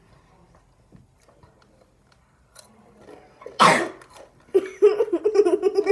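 A single loud cough about three and a half seconds in, then a person's voice making a drawn-out, wavering sound.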